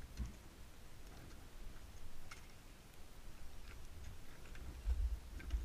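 Faint clicks and light knocks of climbing gear on the ice, a few of them scattered irregularly, over a low rumble on the microphone that grows louder near the end.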